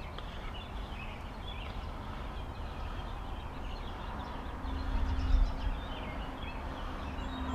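Birds chirping over a steady low rumble, the rumble swelling briefly about five seconds in.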